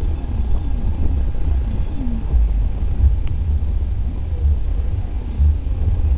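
Wind buffeting the camera microphone: a heavy, uneven low rumble.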